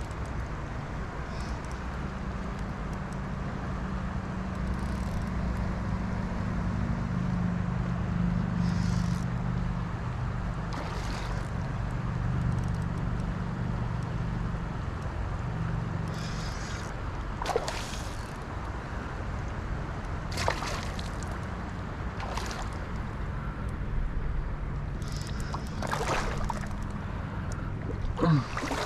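River water sloshing and gurgling close by, with short splashes now and then, over a low steady hum.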